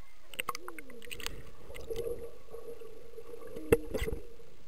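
Water sloshing and gurgling around a camera held at the surface by a swimmer, with scattered clicks and two sharp knocks near the end.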